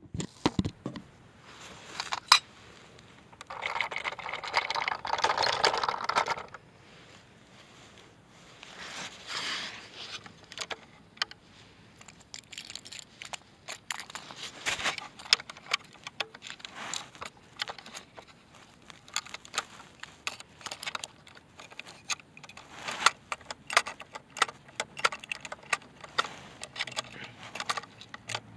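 Handling noise of a die-cast toy rear-loader garbage truck and small plastic toy trash carts on asphalt: many light clicks, taps and scrapes, with a longer gritty scraping stretch about four seconds in and a shorter one near ten seconds.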